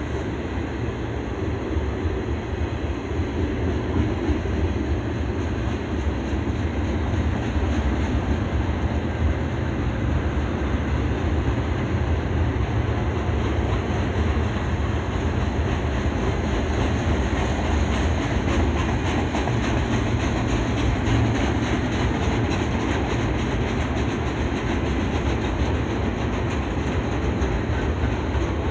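Double-stack container well cars of a freight train rolling past, a steady rumble of steel wheels on rail, with rapid wheel clicking that stands out more in the middle part.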